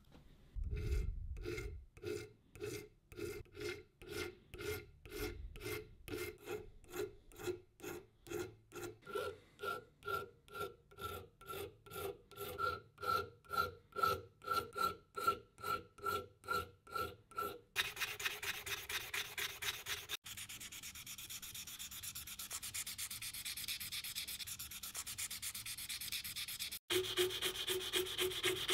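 A brass lamp part being worked by hand with an abrasive tool: even rasping back-and-forth strokes, about two a second, each with a ringing metallic tone. About two-thirds of the way through, the strokes turn much faster and finer.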